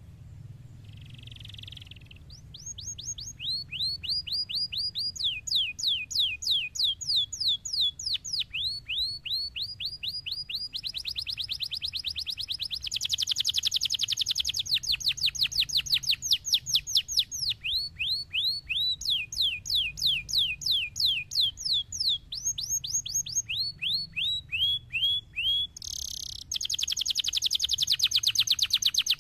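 Domestic canary singing a long, fast song: trill after trill, each a rapid run of repeated downward-sweeping notes, switching to a new trill every second or two. A faint low hum lies beneath.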